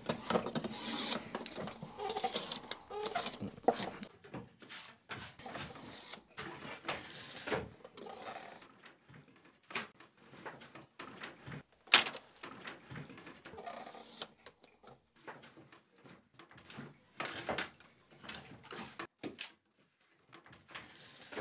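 Draw knife shaving the edge of a hand-split wooden roof shingle held in a wooden clamp: irregular scraping strokes and sharp knocks of wood on wood, the loudest stroke about halfway through.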